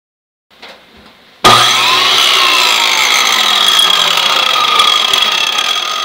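A motorised power tool starts abruptly about a second and a half in and runs steadily, with a high, even whine.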